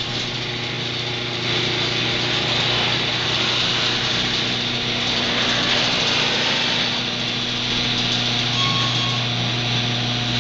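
Electric garage door opener motor running steadily as it drives the door, a constant motor hum with a noisy whir over it.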